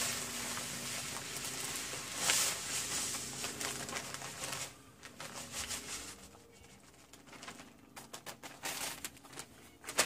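Grass seed and fertilizer granules being poured from a bag into a push broadcast spreader's hopper: a dense hissing patter for the first four or five seconds, loudest about two seconds in, then scattered rattles and bag crinkles.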